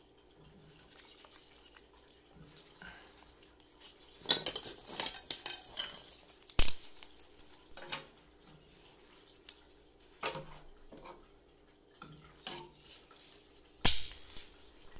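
Knocks and metallic clinks at a Jøtul Oslo F 500 cast-iron wood stove, with a quick cluster of them about four to six seconds in and two loud single clanks, one near seven seconds in and one near fourteen.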